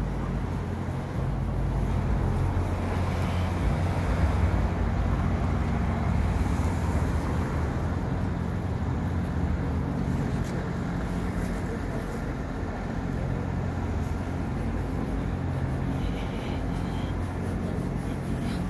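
City street traffic: a steady low rumble of vehicles with a constant engine hum underneath.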